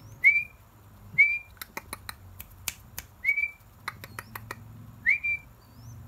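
A person whistling short rising notes, four of them a second or two apart, to call a hand-reared spotted dove chick over to the hand. Runs of sharp clicks come between the whistles.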